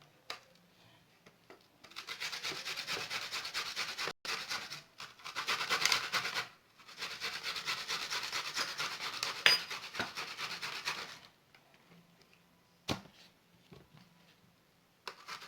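Red onion being grated on a hand grater: rapid rasping strokes in two runs of about four seconds each, then a pause broken by a single knock.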